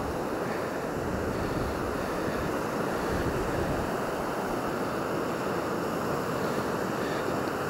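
Sea surf washing in over a shore of rounded pebbles and boulders: a steady rush of small breaking waves.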